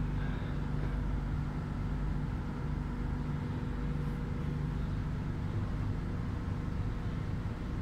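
Steady low hum inside a Shanghai Metro Line 15 train car standing at a station platform, with a few constant low tones from the car's running equipment and ventilation.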